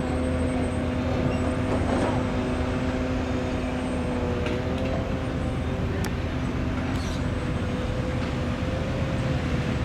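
An engine running steadily, a constant droning hum over a low rumble, with a few faint knocks.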